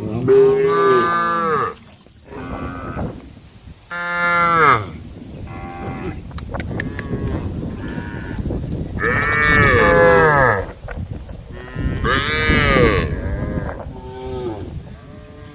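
Several cows mooing one after another: about six long, loud moos, each rising and then falling in pitch, with a few overlapping. The loudest come right at the start and about nine seconds in.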